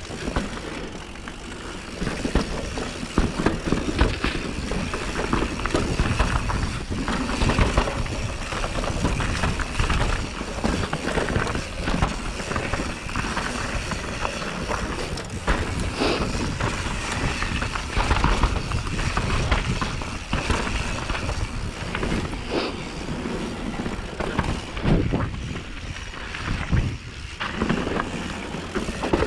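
Mountain bike riding down a dirt forest singletrack, heard from a handlebar-mounted camera: a steady rush of tyres over dirt, with frequent knocks and rattles from the bike as it hits roots and rocks.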